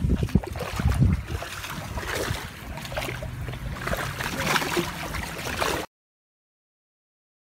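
Water splashing and gurgling at the surface as a dense school of catfish churns against the hull, with wind buffeting the microphone in the first second or so. The sound cuts off to silence about six seconds in.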